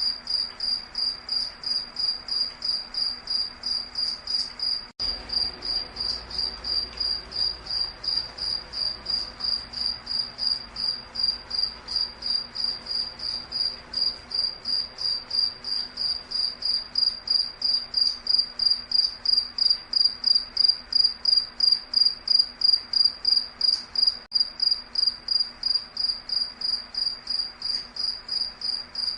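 Insect chirping in a loud, even, high-pitched pulse of about three chirps a second, growing louder about halfway through.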